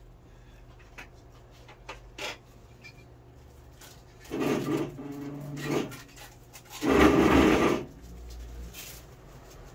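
A wire pipe brush scrubbing through the dirty silicone espresso nozzle tube of a Philips EP2221 coffee machine: light rubbing at first, then two louder scrubbing bursts, the second and loudest about seven seconds in.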